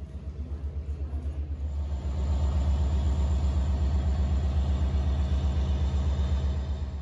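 Diesel train engine idling: a steady low rhythmic rumble that comes up much louder about two seconds in.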